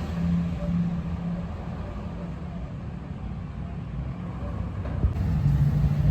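A motor vehicle's engine running close by on a street, a low steady hum that fades in the middle and grows louder again near the end.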